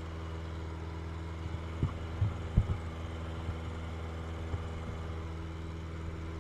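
Light aircraft's engine and propeller droning steadily, heard from inside the cabin. A few sharp knocks of handled gear about two to three seconds in.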